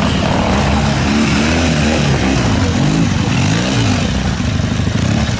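Classic trials motorcycle's engine being ridden through a steep, rough section, its pitch rising and falling several times as the throttle is opened and eased, most of all in the middle.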